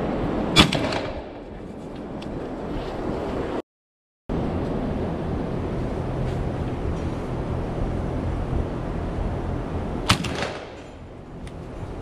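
Two shotgun shots about nine seconds apart, each a sharp bang with a short trailing echo, over a steady low background noise.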